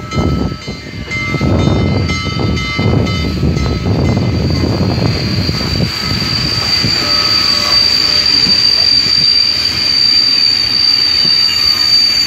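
Union Pacific 844, a 4-8-4 steam locomotive, rolling past close by: a low chuffing beat in the first half, then a steady high-pitched squeal joins about halfway and holds over the rumble of the train.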